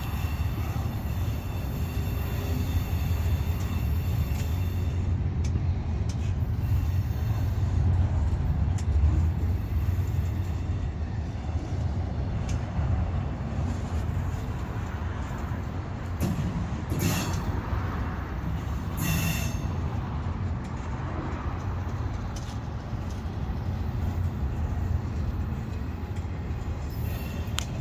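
Double-stack intermodal freight cars rolling past: a steady low rumble of steel wheels on the rails. There is a faint high wheel squeal near the start and two short, sharp metallic sounds a little past the middle.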